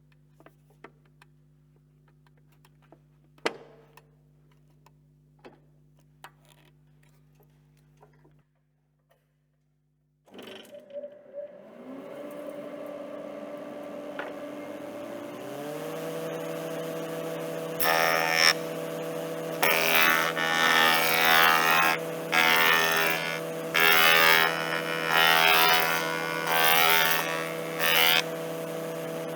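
Surface planer starting up, its motor tone rising to speed, then running steadily. Over the last ten seconds a cladding piece is fed over the cutter in about seven loud cutting passes to plane a 25-degree bevel. Before the start, only a faint hum with a few light clicks.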